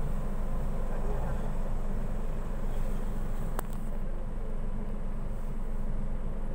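Steady low rumble of a car heard from inside its cabin, with a single sharp click about three and a half seconds in.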